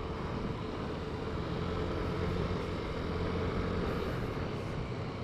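Yamaha Lexi S scooter's 125 cc liquid-cooled single-cylinder VVA engine running steadily while riding, swelling slightly in the middle.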